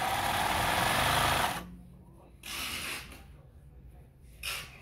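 Singer 20U83 industrial zigzag sewing machine stitching through denim in a quick run of about a second and a half, then stopping. Quieter handling sounds follow.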